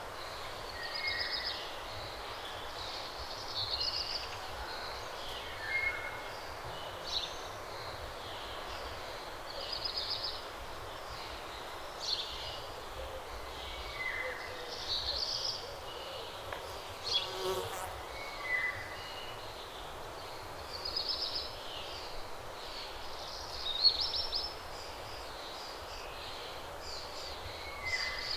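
Dawn birdsong: short, high phrases repeating every couple of seconds, with a few lower chirps, over a steady background hiss. One phrase near the end of the third quarter is the loudest.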